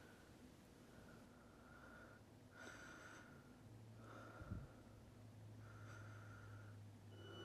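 Faint, fast breathing, a short puff about every one and a half seconds. A low hum sets in about halfway through, and there is a soft thump about four and a half seconds in.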